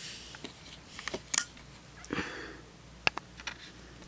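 Handling noise from a Lego figure being picked up and moved: a few sharp plastic clicks and knocks, the loudest about a second and a half in, with short soft rustles between them.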